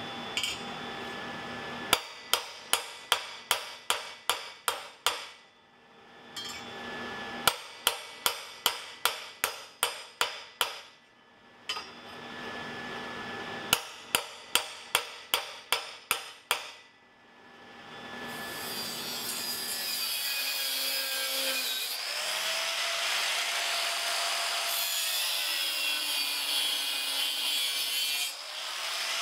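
Hammer striking steel in three quick runs of about eight or nine ringing blows each, bending the tabs of a round steel plate over rods held in a vise. About two-thirds of the way in, an angle grinder with a cut-off wheel spins up and cuts through steel flat bar, its whine sagging in pitch as the wheel bites.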